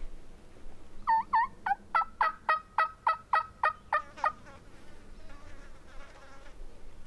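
A run of about a dozen turkey yelps, roughly three a second, each note dropping in pitch. A fainter, wavering call follows about a second later.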